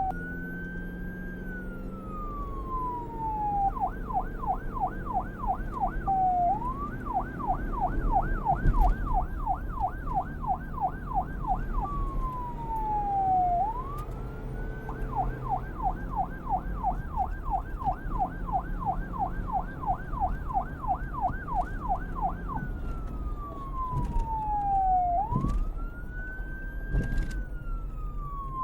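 Police car electronic siren alternating between a slow wail, rising and falling over a few seconds, and a fast yelp of about three sweeps a second, with a low rumble underneath. A sharp knock is heard about nine seconds in.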